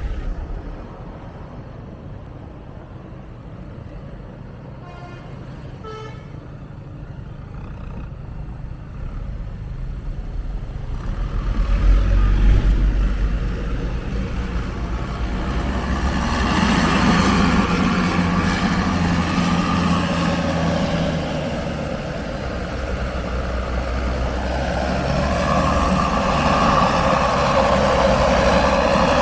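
Tour bus on the road with its engine and road noise swelling loud from about ten seconds in, while its multi-tone telolet horn (basuri type) sounds.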